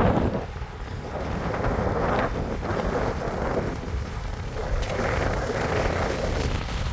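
Wind buffeting the camera's microphone on a fast-moving bicycle: a low rushing rumble that swells and eases several times.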